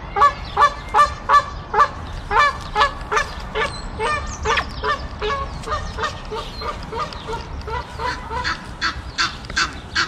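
Young secretary bird giving its juvenile calls: a fast series of short pitched calls, about two or three a second, softer in the middle and stronger again near the end.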